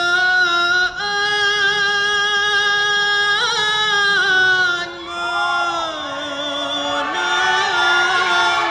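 Dikir barat lead singer's high male voice singing a slow, drawn-out line of long held notes with wavering ornaments. About halfway through, other voices join in and the lines overlap.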